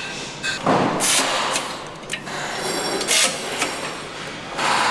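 Engine assembly-line machinery noise: a steady mechanical background broken by short, loud noisy bursts about a second in, around three seconds in and near the end.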